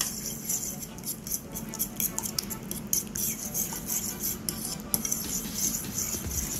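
Metal utensil stirring a wet mix of mashed sardines and egg in a ceramic bowl, making quick, irregular clinks and scrapes against the bowl.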